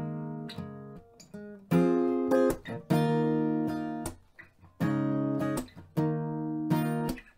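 Background music: an acoustic guitar strumming chords, a new chord every second or so.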